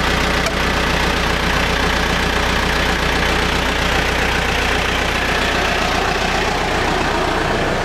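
Caterpillar 420D backhoe loader's four-cylinder diesel engine idling steadily.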